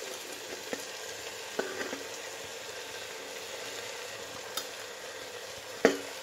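Mutton and freshly added grated turnip and beetroot sizzling steadily in oil in a cooking pot. A few short clicks and knocks from handling in the pot come through, the loudest near the end.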